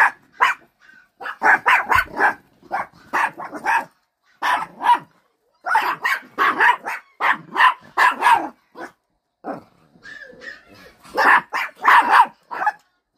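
Miniature pinschers barking: many short, sharp barks in quick runs, with a brief lull about nine to eleven seconds in.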